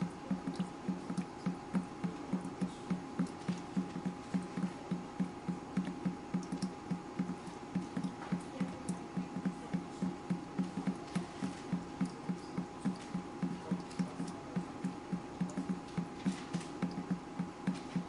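Water dripping in a fast, even rhythm, about three drops a second, over a faint steady tone.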